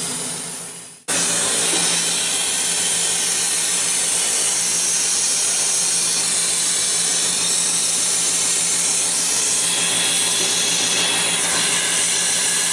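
Small electric air compressor of a B&G portable aerosol system switching on abruptly about a second in and running steadily, a motor hum under a loud hiss of air.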